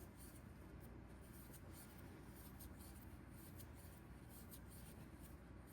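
Faint scratching and rubbing of a crochet hook pulling yarn through loops while chain stitches are made, with light scattered ticks.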